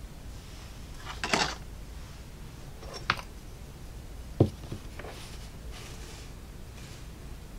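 A few short, sharp clicks and taps of small hobby tools and thin laser-cut wood parts being handled on a workbench while parts are cut free from the sheet. The loudest tap comes about halfway through, with a short rattly clatter a second in.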